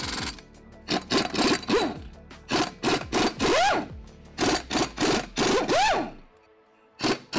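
Air impact wrench on the 19 mm flywheel bolts, run in several short bursts, each with a whine that rises and then falls in pitch. Background music runs underneath.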